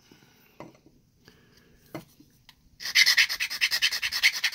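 Flat file rasping in quick, even back-and-forth strokes across the cut edge of a small model truck cab, smoothing the edge down after the bed was cut off. The first few seconds are nearly quiet apart from a couple of light handling clicks; the filing starts about three seconds in.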